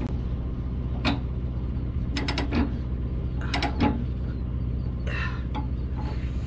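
Ratchet chain binder being cranked to tighten a load-securing chain: sharp ratchet clicks about a second apart, some in quick runs of three or four. A steady low hum runs underneath.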